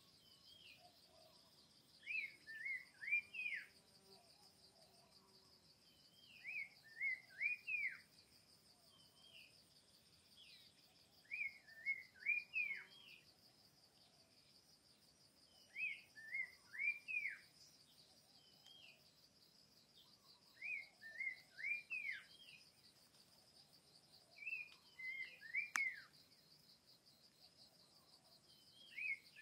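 A bird singing a short phrase of three or four quick swooping whistled notes, repeated about every four to five seconds, over a steady high insect trill.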